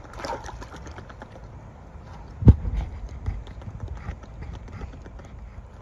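Beavers chewing and moving sticks at the rim of a metal stock-tank pool: a quick run of small crisp clicks near the start, a loud low thump about two and a half seconds in, then a few softer knocks.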